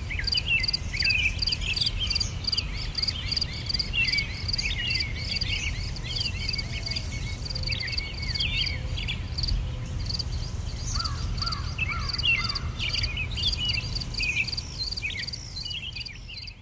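Crickets chirping in a steady, evenly pulsing rhythm, with small birds twittering over them and a low steady rumble underneath. The sound begins to fade out near the end.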